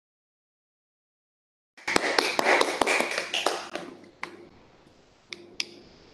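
A small audience applauding, heard over a video-call link: a burst of hand clapping starts about two seconds in after dead silence and fades out, with a few last scattered claps near the end.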